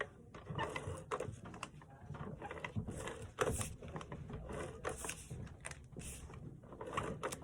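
Handling of paper and card on a work surface: scattered light rustles, taps and scrapes at an irregular pace.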